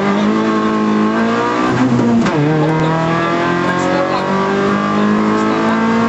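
Rally car engine heard from inside the cabin, pulling hard on a stage: its note holds steady, drops sharply about two seconds in at a lift or gear change, then climbs again in the second half.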